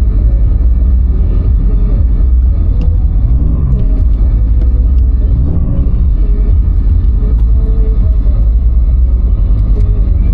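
Fiat Marea's turbocharged 2.4-litre five-cylinder engine running at low revs, heard from inside the cabin as a steady low rumble. The pitch briefly rises and falls twice, about three and a half and five and a half seconds in.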